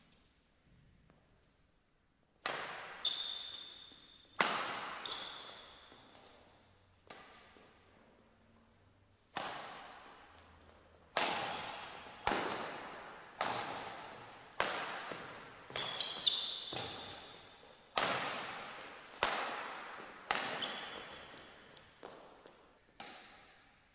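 Badminton rackets striking a shuttlecock in a rally, about once a second, each sharp smack echoing through the large hall. Short high squeaks come after several of the hits, typical of players' shoes on the court floor.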